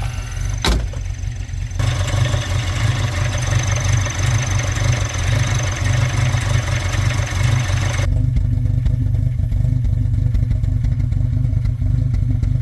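Engine running steadily with a deep, even rumble. A sharp click comes just under a second in, and a rushing noise rides over the engine from about two seconds in until about eight seconds.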